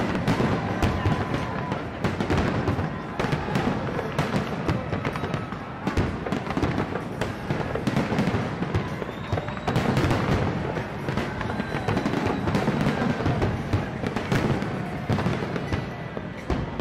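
Fireworks bursting continuously, a dense run of sharp bangs and crackles with music playing underneath.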